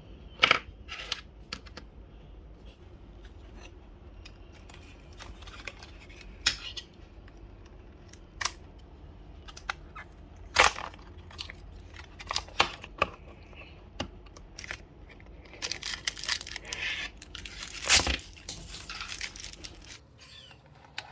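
Toy surprise packaging being cut and torn open by hand, with scattered sharp clicks and taps of plastic and a longer stretch of tearing and crinkling near the end.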